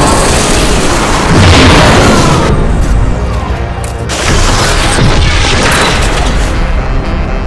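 Loud booming, rumbling sound effects laid over background music, swelling about a second and a half in and again about four seconds in.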